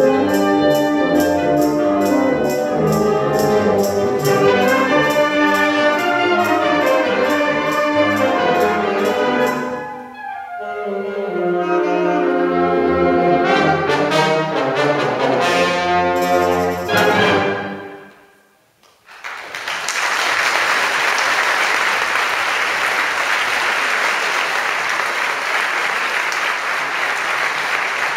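Concert wind band playing fast, brass to the fore, with a sudden drop about ten seconds in before it picks up again; the piece ends on its final chords about eighteen seconds in, and after a brief hush the audience breaks into steady applause.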